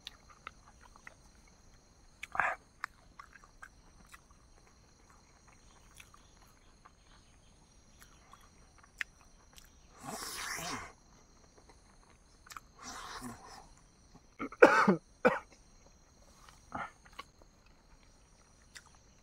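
A person coughing and clearing their throat several times while eating, the bouts a few seconds apart and the loudest a double cough a little after the middle, with faint chewing clicks in between.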